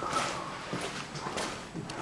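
A few footsteps, spaced about half a second apart, scuffing on a rough tunnel floor.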